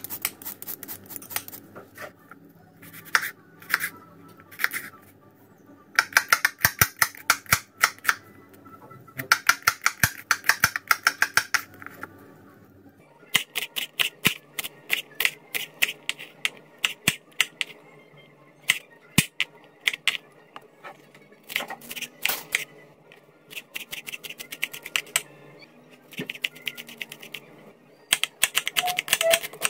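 Kitchen knife chopping carrots, green beans and onion on a bamboo cutting board: quick runs of sharp knocks, several a second, broken by short pauses.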